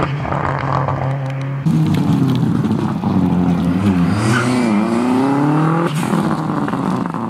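Audi A4 rally car's engine driven hard: its pitch dips and wobbles as the car slows into a tight turn, then climbs steadily as it accelerates out.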